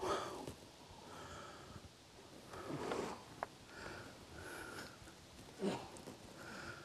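Three loud, sharp sniffs or snorts, about two and a half to three seconds apart, with faint short chirping notes in between.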